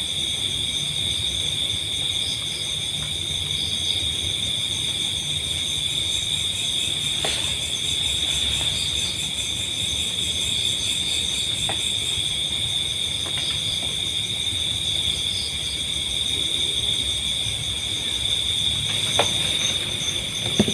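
Chorus of crickets and other insects at night: several steady high-pitched trills layered together, some pulsing rapidly, over a low rumble, with a few faint clicks.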